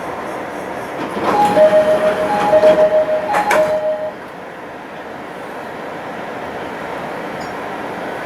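E501 series train door chime: a two-note chime, a short higher note then a longer lower note, sounding three times over about three seconds, with a couple of sharp knocks near its end. It gives way to a steady train hum.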